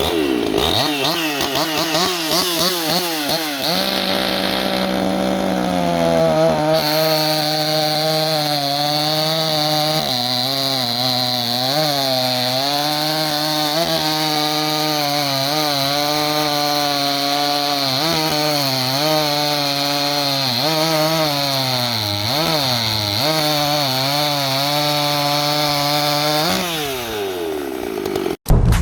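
Husqvarna 254 two-stroke chainsaw engine, freshly ported and run without its base gasket, revving unevenly for a few seconds and then held at high revs. Its pitch dips briefly a few times before the revs fall away near the end.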